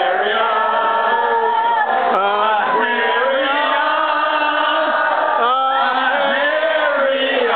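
Several voices singing together in a chant, held notes sliding up and down, led by a man singing into a microphone.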